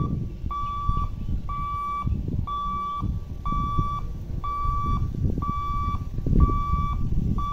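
Level crossing warning beeper sounding a steady high beep about once a second, each beep lasting about half a second, as the electric boom barrier stands raised after the train has gone. A low rumble runs underneath.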